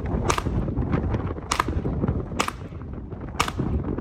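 Four shots from a Ruger Mark IV Lite, a .22 Long Rifle semi-automatic pistol, fired about a second apart.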